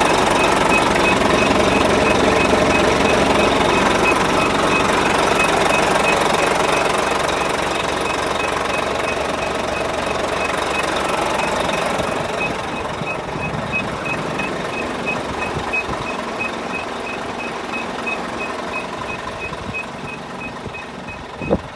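UD Quon truck's diesel engine idling with a steady clatter, fading gradually as the listener moves away from the engine bay. A thin high beep repeats about four times a second over it, and there is a single thump near the end.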